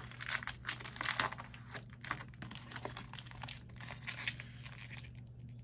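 Foil trading-card booster-pack wrapper crinkling in the hands, in quick irregular crackles.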